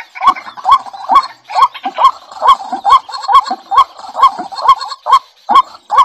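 White-breasted waterhen calling: a short rising note repeated evenly a little over twice a second, each starting with a sharp click.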